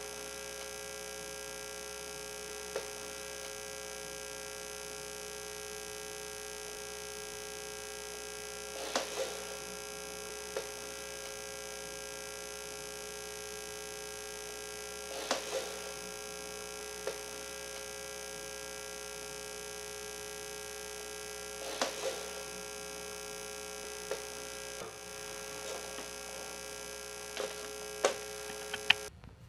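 Residual hum and hiss of a phono preamp and power amplifier, played through loudspeakers with the volume turned up and no record playing. A few faint clicks come through it, three of them about six seconds apart. This is the idle noise of the amplifier chain, at a level described as very normal.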